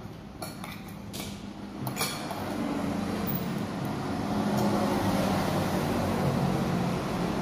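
A few light clinks of a spoon against a plate, then a motor vehicle engine grows louder over a few seconds and keeps running steadily with a low hum.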